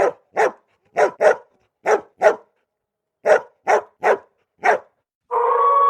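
A series of about ten short, sharp barks, some in quick pairs, from a dog-like animal sound effect. Near the end a long, steady-pitched howl begins and holds.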